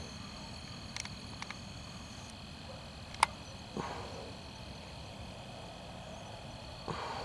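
Steady chorus of night insects, a few unbroken high tones held together. A sharp click about three seconds in, with a few softer clicks and knocks around it.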